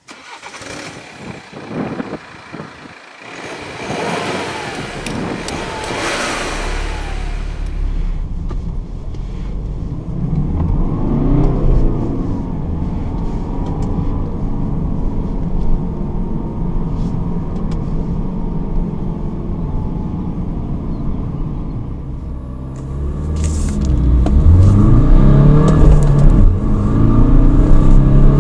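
BMW 420d's 2.0-litre four-cylinder turbodiesel, heard from inside the open-top cabin, running steadily under light load, after a few seconds of whooshing noise at the start. About 23 seconds in it goes to hard acceleration: it gets much louder and the revs climb toward 4,000 rpm.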